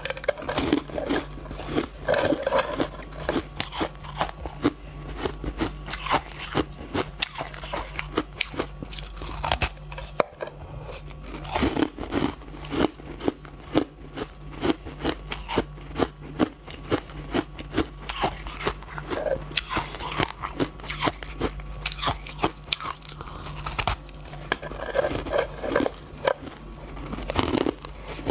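Shaved ice being bitten and chewed, picked up close by a clip-on microphone: rapid, irregular crunches that run on without pause.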